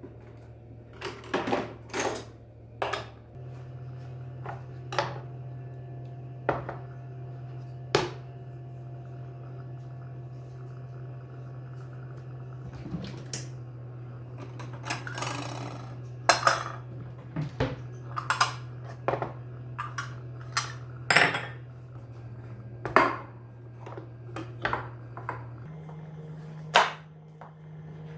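Kitchen dishes and utensils clinking and knocking, with scattered irregular sharp clicks and a brief scraping or rustling stretch about halfway through, over a steady low hum.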